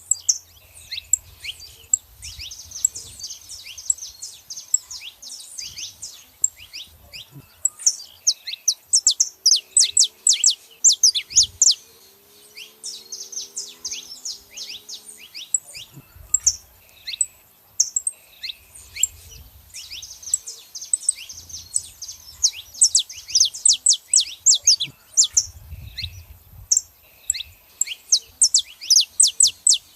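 Saffron finches chirping and singing in bursts of rapid, high-pitched notes, with brief quieter gaps between the runs.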